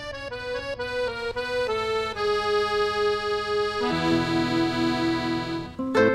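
Instrumental background music: a slow melody of stepped notes, then long held notes with a wavering pulse, in the reedy sound of an accordion-like instrument.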